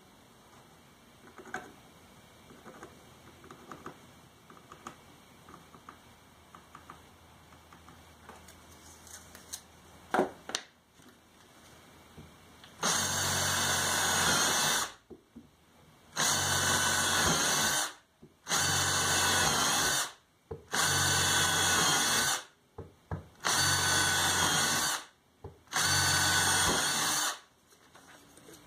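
Hand-held electric drill driving a plug cutter into hardwood, run in six short bursts of about two seconds each that begin about halfway through. Before them there are only light handling clicks and taps.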